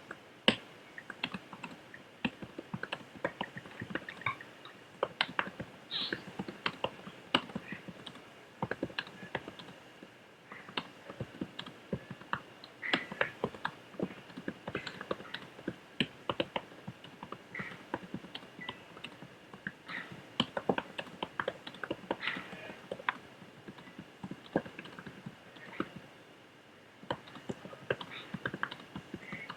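Fast typing on a computer keyboard: a steady stream of key clicks, with short lulls about a third of the way in and near the end.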